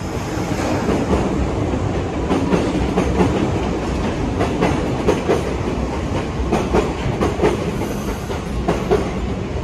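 Kintetsu electric train rolling along the track, its wheels clattering over rail joints in a rapid, irregular run of clicks above a steady rumble.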